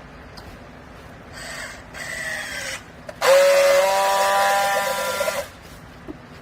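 Hydraulic baler's motor-driven pump whining in short runs: two brief whines that fall in pitch, then a louder steady whine for about two seconds that cuts off sharply.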